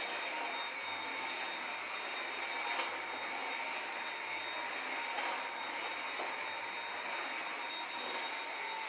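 Cordless stick vacuum cleaner running steadily: a constant rush of air with a high motor whine over it.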